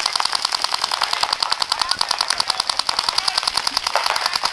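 Paintball markers firing a fast, even stream of shots during play, continuous and unbroken.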